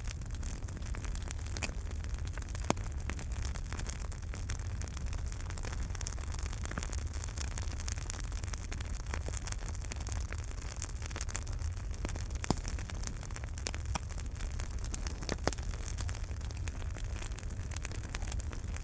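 Wood fire burning in a fireplace: a steady low rumble with many small crackles and a few louder pops.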